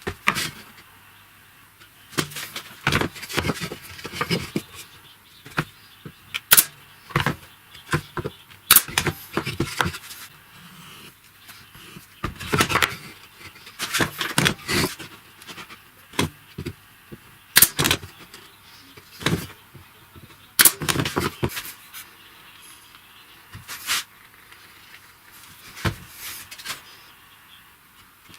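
Irregular clicks and knocks of hard objects being handled, coming in clusters with short pauses between them.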